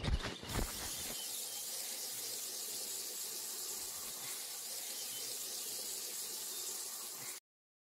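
A few short knocks, then a steady hiss of a narrow water jet from a garden-hose spray wand striking concrete and a boot, which cuts off abruptly near the end.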